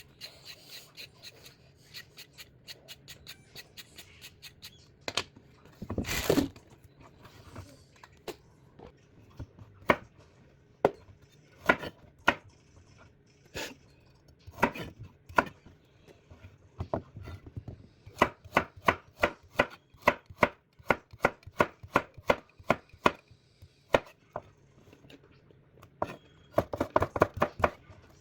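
Knife chopping on a cutting board: a long run of sharp knocks, irregular, coming several a second in places, with one longer, louder noise about six seconds in.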